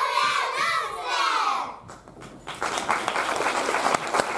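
A group of children shouting together on stage, then audience applause starting about two and a half seconds in.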